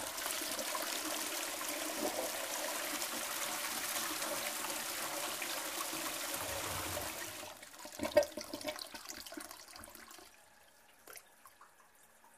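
Toilet flushing: a steady rush of water for about seven seconds, then gurgling and trickling that fades away as the cistern refills, with a single sharp knock about eight seconds in.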